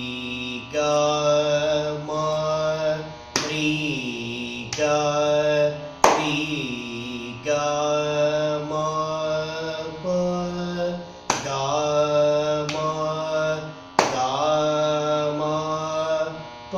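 A man singing a Carnatic alankaram exercise in Rupaka tala at first speed: sol-fa syllables (swaras) on held notes that step from one pitch to the next. Four sharp hand claps mark the tala.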